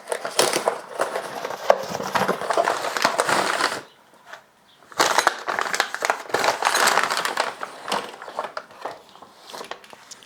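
A cardboard box being opened and its packaging handled: rustling and crinkling with small clicks and knocks, in two stretches with a short pause about four seconds in.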